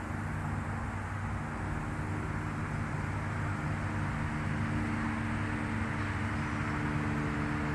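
A steady low mechanical hum, several low tones held constant over a wash of noise, like a running motor or vehicle.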